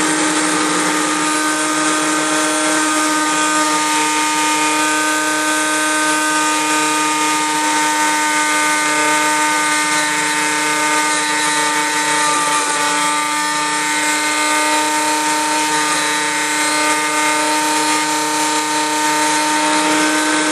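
Nishigaki 'Dori-ken' electric drill sharpener running, its grindstone (set for a 118-degree point) grinding a drill bit held in the chuck: a steady motor whine over a grinding hiss, the pitch sagging slightly about twelve seconds in.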